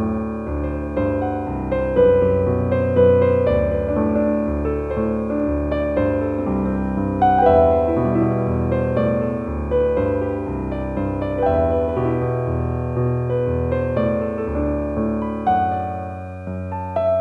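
Piano music of slow, sustained, overlapping notes and chords.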